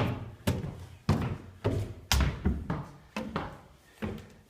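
Footsteps climbing stairs: about two thudding footfalls a second, growing fainter near the end.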